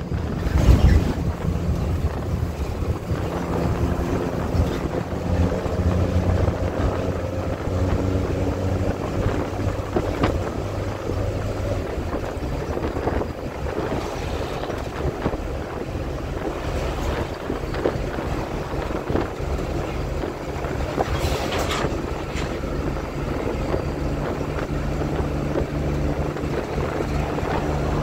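Inside a moving bus: the engine's steady low hum with road rumble and wind noise. A brief rushing noise about three-quarters of the way through.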